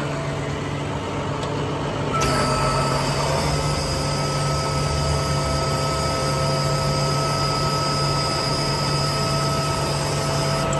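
Diesel engine of an International forestry bucket truck idling steadily. About two seconds in, a steady high whine and a hiss start and run on over the engine.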